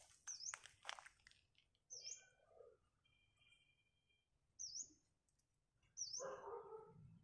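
A bird repeats a short, high chirp four times at uneven intervals, with a thin whistled note between calls. A few soft clicks come in the first second, and a short, lower call comes about six seconds in.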